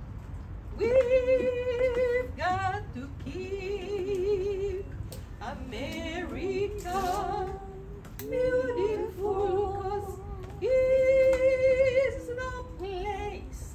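A woman singing long held notes with a wavering vibrato, in several phrases separated by short breaths, the loudest and longest note coming near the end.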